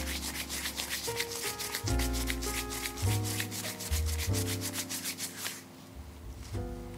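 Gloved hands rounding a ball of bread dough: a quick, even run of rubbing strokes that stops about five and a half seconds in. Background music with a bass line runs underneath.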